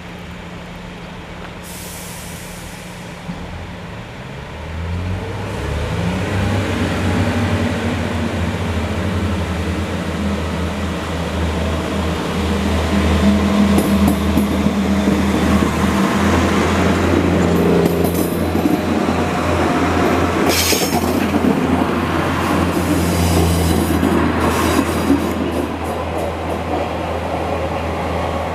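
Class 143 and Class 142 Pacer diesel multiple units pulling away: the underfloor diesel engines tick over, rev up about four seconds in, and then drone loudly as the units pass close by. The drone is loudest around the middle and eases slightly near the end.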